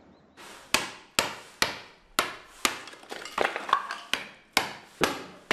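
Club hammer striking a brick wall over and over, knocking off old plaster. About a dozen sharp blows come roughly two a second, each ringing briefly.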